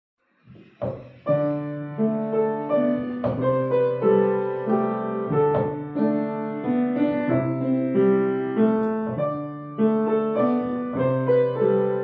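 Kawai grand piano played at an even pace: a melody of single notes over held low bass notes, starting about a second in.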